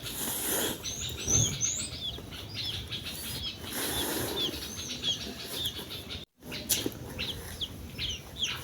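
Small birds chirping over and over: short, falling chirps about two a second, with some higher chirps now and then, over a soft noisy background. The sound drops out for a moment about six seconds in.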